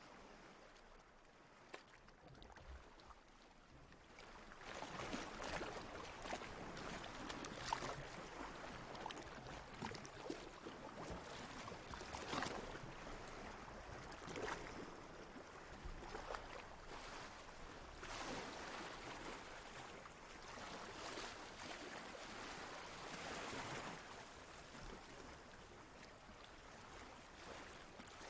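Water lapping and splashing in uneven swells, quieter at first and growing fuller about four seconds in, with small splashes scattered through.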